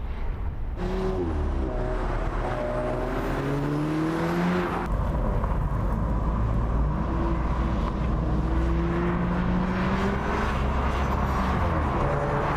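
2017 Audi S3 Cabriolet's turbocharged 2.0-litre four-cylinder engine under acceleration, its pitch rising, dropping back and rising again as it pulls through the gears.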